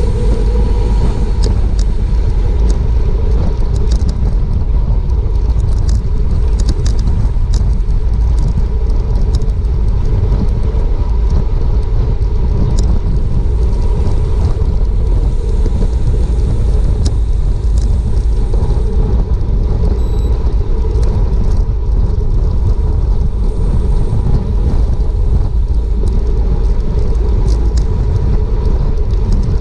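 Wind rushing over a GoPro's microphone on a bicycle at racing speed: a loud, steady low rumble with faint, scattered ticks.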